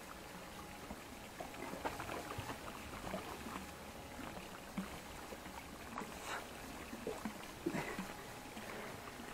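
Gentle water lapping against a small inflatable boat, with scattered light knocks and rustles from a towel and hands handling a large grouper.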